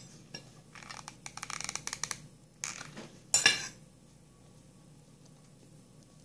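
Crinkling and rustling of stiff, starched satin flower petals handled and pressed together by hand: a run of quick crackles about a second in, then two short, louder rustles around three seconds in.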